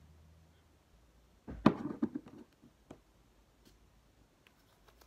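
Handling noise from struggling with a plastic spray bottle and its cap: a cluster of knocks and clicks about a second and a half in, the loudest sound, followed by a few lighter scattered clicks.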